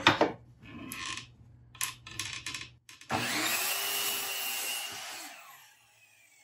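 Sliding compound miter saw: a few clicks and knocks as it is reset to a new angle. About three seconds in, the motor starts and runs through a test cut in a board for about two seconds, then winds down.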